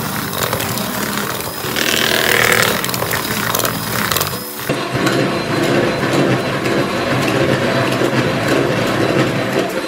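Electric hand mixer running, its beaters whisking runny pancake batter of flour, egg and milk in a plastic bowl. About halfway through the sound changes abruptly to a steadier motor hum.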